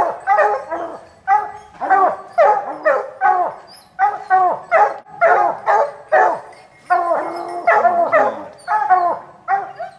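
Pack of hunting hounds barking at a bear they have treed, a steady run of overlapping barks, two or three a second.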